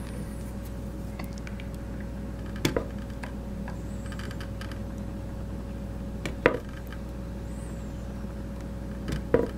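Three small, sharp metallic clicks a few seconds apart as the retaining C-clip and head of a CyberHammer piano tuning hammer are worked with a pick, over a steady low hum.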